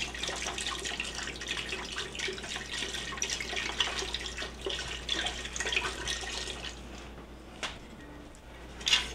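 Wine poured from a glass bottle into a stainless steel stockpot of tomato-paste liquid, a steady splashing trickle that tapers off about seven seconds in. A short knock comes near the end.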